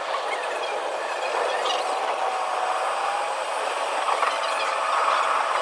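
A tram running on its rails, its rattle and rumble sped up four times and so raised in pitch to a busy, high hiss. A steady whine sounds partway through and returns higher in pitch near the end.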